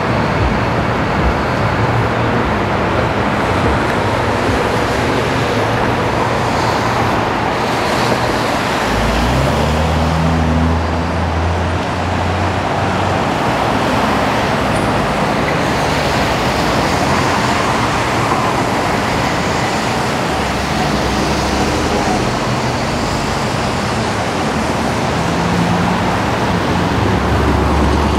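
City street traffic on wet pavement: a steady wash of tyre and engine noise from passing cars. About nine seconds in, a heavy vehicle's low engine hum rises in pitch as it passes, and another low engine hum comes in near the end.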